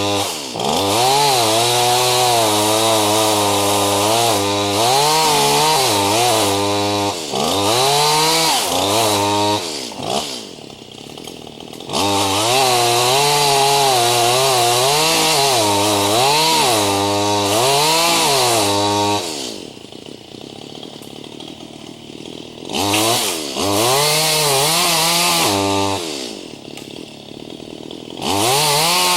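Chainsaw cutting green ash wood, its engine pitch sagging and recovering again and again as it labours in the cut. It drops back to idle briefly three times: about ten seconds in, around twenty seconds, and near the end. The owner finds the saw too small for the job; it struggles in the green ash.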